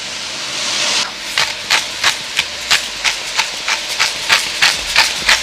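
Vegetables hissing in a hot pan, then a steady run of short gritty strokes, about three a second, as seasoning is ground over the pan.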